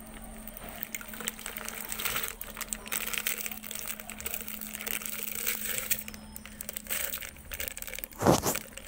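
A plastic milk packet crinkles and rustles as it is squeezed to pour milk into a mixer-grinder jar. There is one louder thump near the end.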